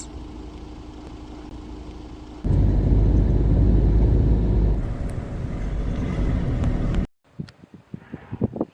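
Off-road vehicle driving, a steady low rumble that becomes much louder about two and a half seconds in and cuts off abruptly about seven seconds in. After that comes a quieter stretch with a few short sharp clicks.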